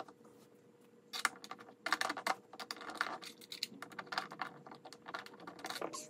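Quick irregular runs of light clicks and rattles from hard computer-chair parts being handled during assembly, starting about a second in, over a faint steady hum.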